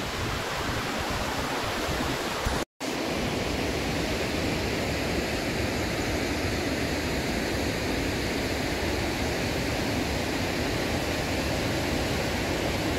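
Steady rushing of stream water, with a brief dropout a little under three seconds in.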